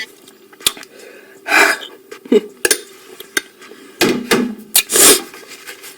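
Scattered clinks and knocks of cutlery against dishes, with a few short bursts of handling noise.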